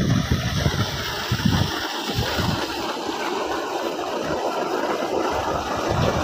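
Water from a new tubewell running at full pressure, rushing out in a steady stream, with low gusts of wind on the microphone near the start and near the end.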